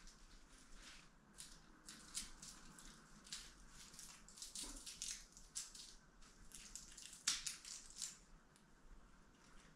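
Faint, irregular crinkling and rustling with small sharp clicks: craft materials being handled and worked by hand, with the loudest crackle a little after the middle.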